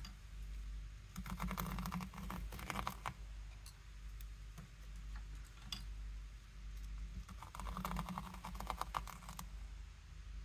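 Metal tweezers working the ends of paper strips on a woven painting: two runs of quick small clicks and scratches, one about a second in and one near eight seconds, with a few single clicks between.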